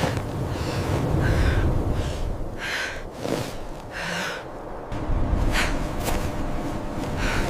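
A person breathing hard in short, hissing breaths about every second or so, over a steady low rumble like wind.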